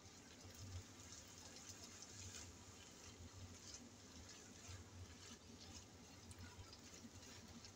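Faint wet stirring and scraping of a plastic spatula through ground pork and tomato sauce in a nonstick frying pan, with small scattered crackles of the cooking sauce and a low steady hum underneath.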